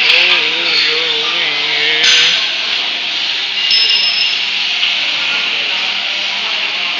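Steel plate-chain conveyor lines running with a steady mechanical noise. A person's voice is heard faintly for the first two seconds or so.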